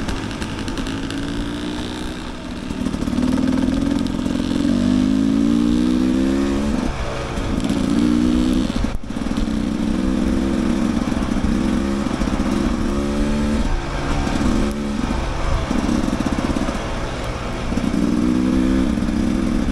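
Dirt bike engine running under load on a trail, its pitch climbing through several rising pulls, about four of them, with the throttle easing off in between.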